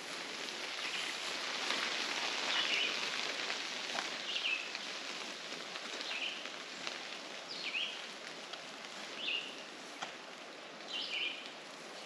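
Footsteps rustling through tall wet grass and ferns, under a steady hiss of leaves, while a bird repeats a short high call every second or two.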